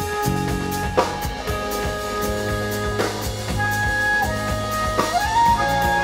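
Live jazz-funk band: a flute plays held melody notes, bending up in pitch about five seconds in, over keyboards, electric bass and a drum kit, with drum accents about every two seconds.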